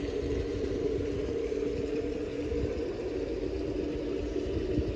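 Steady rushing and rumbling of hot-spring water flowing into the bath, with a low steady hum running under it.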